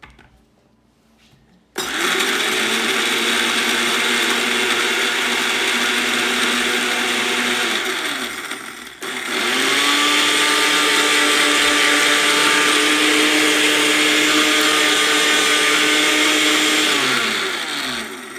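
Countertop blender grinding dry maisena biscuits into crumbs. It starts about two seconds in and runs for about six seconds, stops for a moment, then runs again for about eight seconds and winds down near the end, its pitch rising at each start and falling at each stop.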